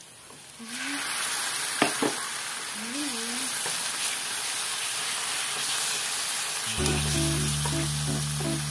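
Raw ground pork hitting hot oil and onion in a nonstick frying pan: a loud, even sizzle starts about a second in and carries on while it is stirred, with a couple of sharp knocks around two seconds. Background music comes in near the end.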